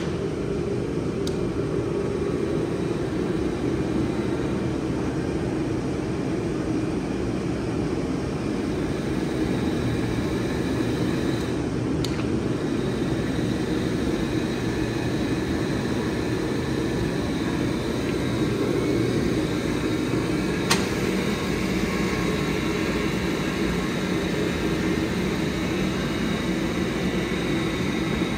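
Steady mechanical drone as a Bowers BEC-3000 welding positioner's table is driven round and power-tilted from its pendant control. A faint high whine joins about halfway through, with a few light clicks.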